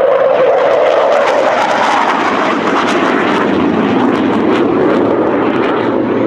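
Hawker Hunter jet flying past in a banking turn: a loud jet rush with a crackling edge, its pitch falling slowly as the aircraft pulls away.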